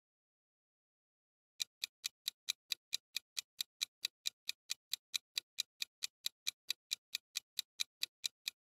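Ticking clock sound effect counting down the answer time, a steady tick at about four a second that starts after a second and a half of silence.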